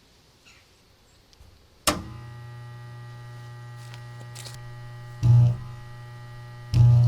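A sharp click, then the steady mains-frequency buzz of an electric arc rig powered by a welder. About 5 s in the carbon arc briefly flares much louder, then from near the end it strikes and burns with a loud steady electrical buzz.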